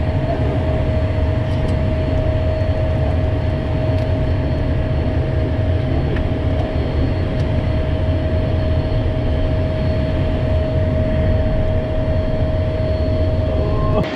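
Steady cockpit noise of an Embraer Phenom 100 light jet in the climb: the rush and low drone of its twin turbofan engines and the airflow, with a steady whine running through it.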